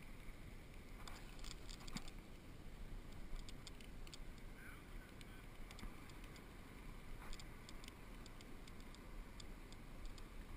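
Scattered light clicks and ticks from a fly reel and line as a hooked gar is played on a fly rod, over a low steady rumble.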